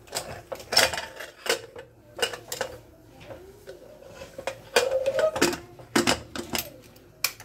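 Aluminium pressure cooker lid being fitted and twisted shut, with a string of metal knocks and clicks as the lid and handles lock together.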